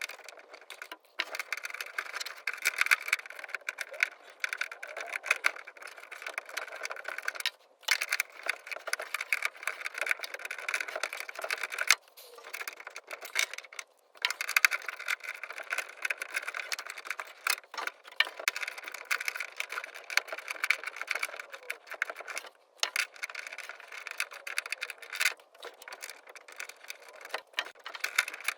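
Tool work on the fasteners of a 1966 Ford Mustang door handle, loosening its 8 mm bolt and Phillips head screw: a dense run of metallic clicking and rattling that goes in stretches of several seconds, with short pauses in between.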